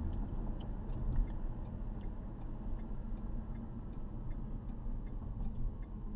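Cabin noise of a 2012 Ford Fusion Sport's 3.5-litre V6 on a resonator-deleted stock exhaust while driving: a steady low exhaust and road rumble. Over it comes a regular light ticking of the turn-signal clicker.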